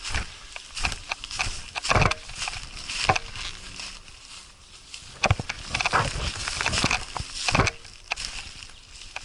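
Irregular rustling and scuffing of someone moving through brush on foot, with a few sharp knocks.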